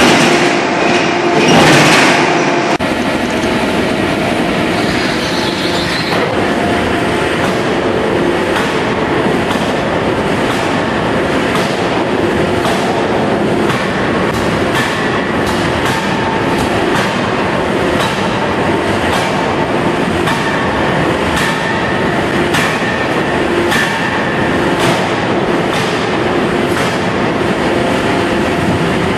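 Fully hydraulic open-die forging hammer striking hot steel in a forge shop: two heavy blows in the first two seconds, then a steady industrial din with regular clanking strikes about once or twice a second.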